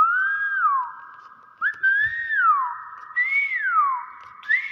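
Hill myna whistling four times, roughly a second apart: each note jumps up, holds briefly and slides down.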